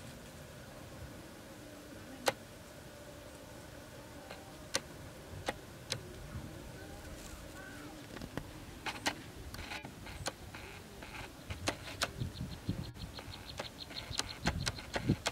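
Rice-field ambience: a faint steady insect buzz, with scattered sharp clicks and rustles that come more often in the second half, and a fast, even run of high ticks over the last few seconds.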